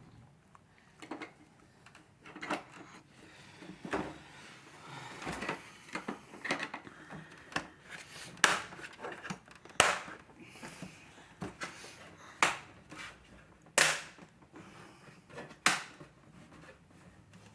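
Hard plastic parts of a McFarlane Toys Batwing vehicle being handled and pressed together: a string of irregular clicks and clacks, with five louder snaps in the second half as pieces are forced into place.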